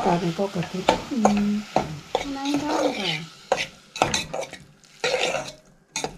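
A metal spoon stirring and scraping cooked cabbage in a metal cooking pot, with repeated irregular clinks of the spoon against the pot's side.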